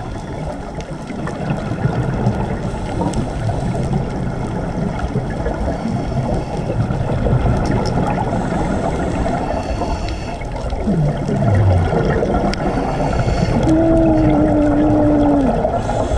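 Underwater sound of scuba breathing: exhaled bubbles from a regulator rumbling and gurgling. A short falling tone comes about eleven seconds in, and a steady held tone from about fourteen to fifteen and a half seconds.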